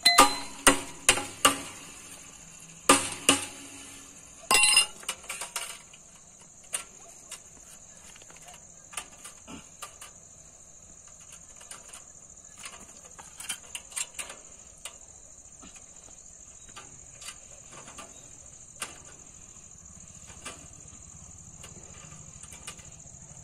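Sharp metallic knocks from striking barbed wire against a steel fence post while the wire is fixed to it: a run of blows in the first few seconds, a couple more around three and four and a half seconds in, then scattered light clinks of wire being handled. A steady high insect chirr runs underneath throughout.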